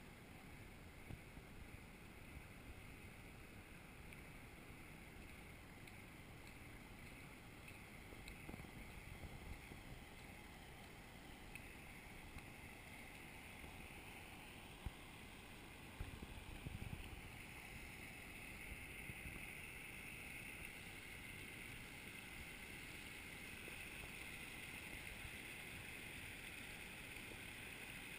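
Floodwater of a swollen creek rushing over a paved path, faint at first and growing louder through the second half. A low wind rumble runs underneath, with a sharp knock about halfway through.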